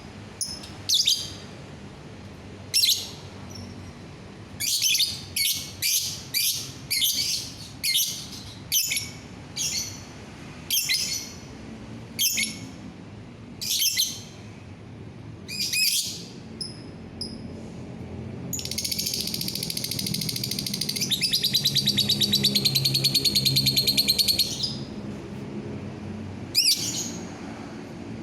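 Lovebird calling: a series of short, sharp, high-pitched chirps, then past the middle a long, rapid chattering trill lasting about six seconds, followed by a couple more chirps near the end.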